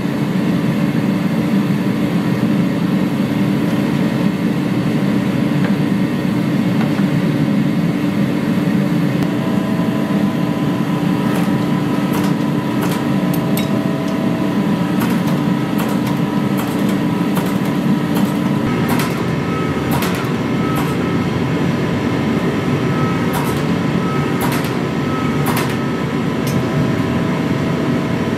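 Gas forge running: its burner makes a steady rushing noise with a low hum throughout, and scattered sharp clicks come in about halfway through.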